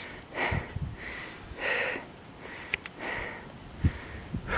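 A person breathing hard close to the microphone, quick rasping breaths in and out about every two-thirds of a second. A small click comes near the middle.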